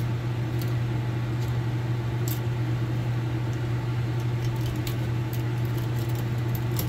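A steady low hum, with a few faint light clicks now and then.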